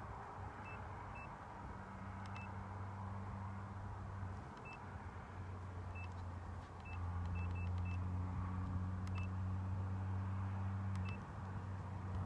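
Short high electronic beeps at irregular intervals over a steady low hum; the hum steps up louder about seven seconds in and eases back near the end.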